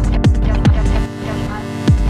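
Electronic dance music with a heavy kick drum about twice a second; the kick and bass drop out for about a second in the second half, then the beat comes back right at the end.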